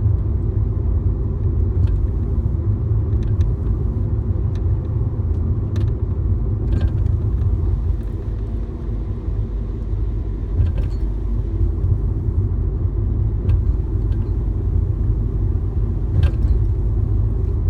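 Fiat Grande Punto Abarth with a steady low rumble of the car on the move. About eight short, sharp rattles or clicks come at irregular intervals from the front of the car; the owner calls them metallic and like something loose.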